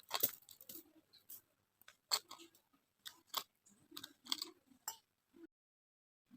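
Kinetic sand being cut and crushed: a series of short, crisp crunches at irregular intervals.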